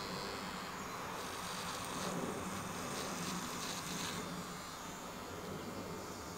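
Electric hair clippers buzzing steadily while cutting hair.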